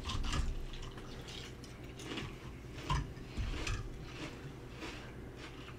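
Spoons clinking and scraping in bowls of cereal and milk, with wet chewing of the cereal; scattered small clicks, the clearest knock about three seconds in.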